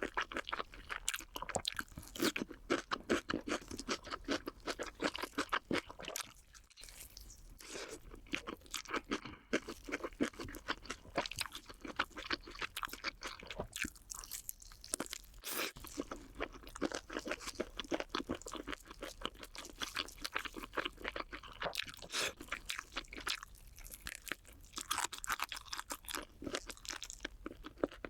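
Close-up chewing of crunchy cheese balls: a steady run of quick crunches, with a couple of brief pauses.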